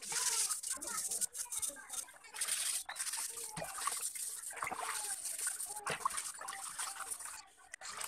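Metal fan parts scrubbed by hand with a scourer in a basin of soapy water: repeated wet scouring strokes and splashing, with a trickle of water near the end.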